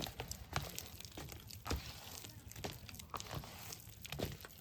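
Irregular small clicks, crackles and crinkling rustles, as from things being handled at close range.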